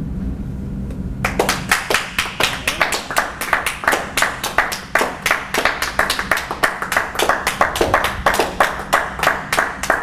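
A small audience applauding, starting about a second in over a low steady hum. The individual claps stay distinct, several a second.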